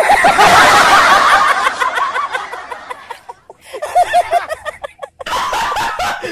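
Loud laughter in quick bouts. It starts suddenly, dies down about three seconds in, and breaks out again in shorter cackles after about five seconds.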